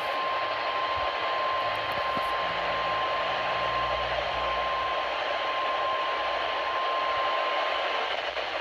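NOAA Weather Radio 1050 Hz warning alarm tone: one steady high tone over heavy radio hiss, cutting off about eight seconds in. It is the alert tone that flags a warning broadcast, here sounded ahead of a severe thunderstorm statement.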